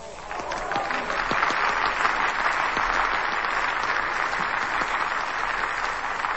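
Audience applauding: many hands clapping together, swelling over the first second or so, then dying away near the end.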